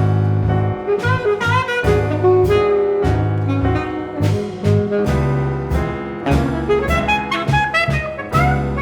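Jazz ensemble with string quartet playing: an alto saxophone line over double bass, drums and piano, with trumpet, trombone and strings in the texture.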